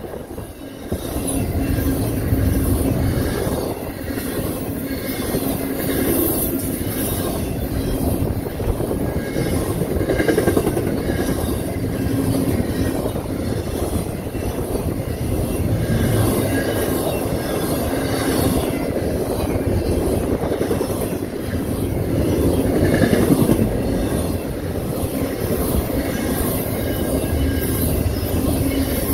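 Freight cars of a CSX double-stack intermodal train rolling past close by, a steady rumble and clatter of steel wheels on the rails.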